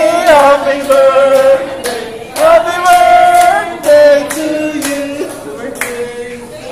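A group of people singing a birthday song together in long held notes, clapping along in time.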